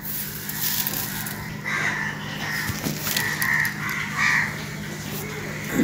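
Crows cawing, several short calls spaced about a second apart, over a steady low hum.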